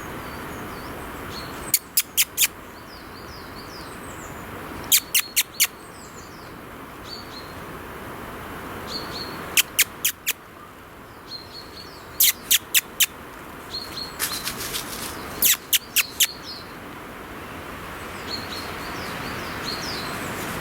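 European robin calling: sharp ticks in quick runs of three or four, repeated every few seconds, with thin high chirps in between.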